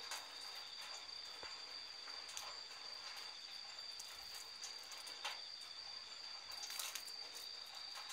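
Crickets chirring steadily in two high, unbroken tones, with a few faint short clicks over them.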